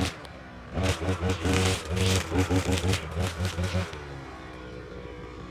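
Petrol brush cutter engine running under load as it cuts grass, with the crackle of the blade through the stalks; about four seconds in the throttle eases and the engine pitch falls.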